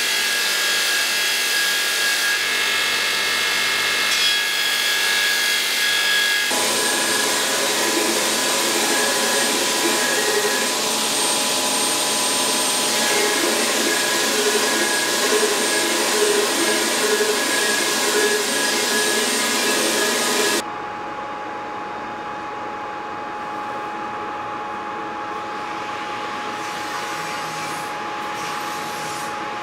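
Belt grinder grinding a steel longsword blade: a loud, steady, harsh grinding that changes abruptly twice in the first seven seconds. About two-thirds of the way through the grinding stops, leaving a quieter steady machine hum with a single thin tone.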